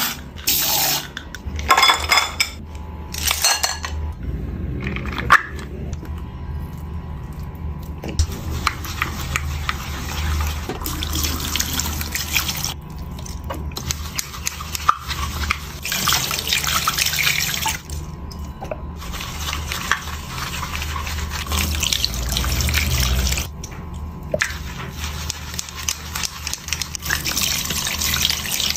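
Makeup brushes being washed: a tap running into a sink while the brushes are swirled in soapy water and scrubbed against a silicone brush-cleaning mat. It is a wet swishing hiss that comes in stretches with short breaks between them.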